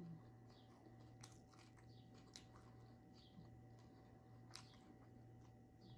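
Faint chewing of a crispy tostada: soft, scattered crunches and mouth clicks over a low steady hum.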